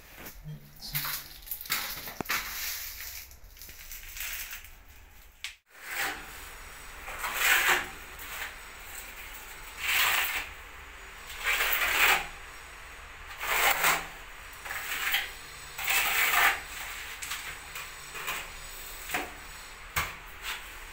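Steel trowel scraping wet cement mortar: short scraping strokes about every two seconds, starting some six seconds in, as mortar is scooped from a bucket and spread on a wall.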